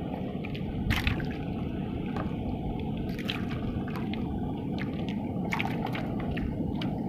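Water sloshing and gurgling, with a few scattered faint clicks.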